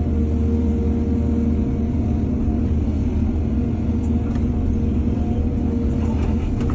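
Heavy diesel earthmoving machinery running steadily at a constant engine speed, with a few faint clinks around the middle.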